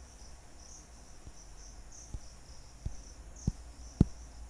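Insects chirping: a steady, high, pulsing chirp repeating about twice a second over a low hum, with several soft knocks, the loudest about four seconds in.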